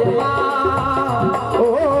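Live Rajasthani devotional folk music: a bending melody over dholak, harmonium and keyboard accompaniment, playing steadily without a break.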